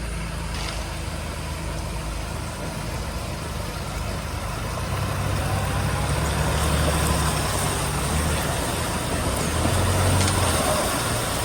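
4x4 vehicle engine running at low trail speed, a steady low drone that grows a little louder about halfway through, over a steady hiss.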